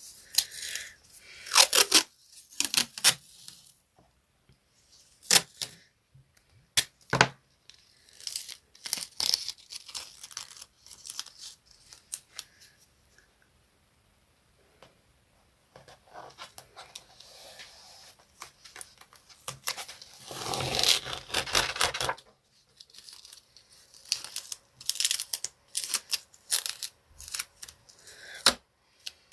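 Colouring on paper: scratchy strokes across the page in irregular bursts, with short pauses and a few sharp clicks.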